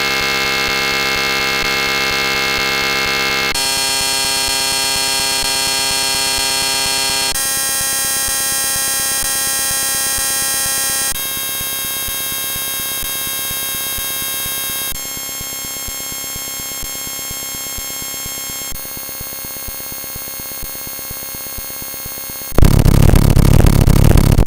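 US Emergency Alert System alarm tone digitally sped up to extreme rates, turned into a dense, harsh chord of steady high-pitched tones that switches abruptly to a new chord about every four seconds, each a little quieter. Near the end it jumps suddenly to a much louder, rough noise.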